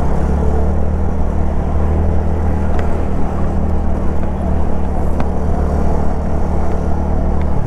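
TVS Ntorq scooter's single-cylinder engine running steadily while riding, under a haze of wind and road noise.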